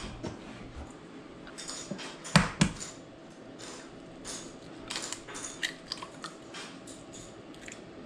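Light knocks and clicks of an egg and a ceramic mug being handled on a wooden counter, with two sharper knocks close together about two and a half seconds in.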